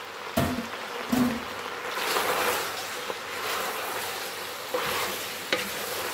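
Pork, onions, garlic and ginger sizzling in a pot as they are stirred, the hiss growing louder about two seconds in, with a few knocks of the wooden spoon against the pot.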